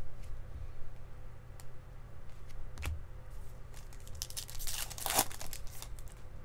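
Baseball card pack wrappers crinkling and tearing as packs are opened, with scattered light clicks of cards being handled and a denser burst of crinkling about five seconds in.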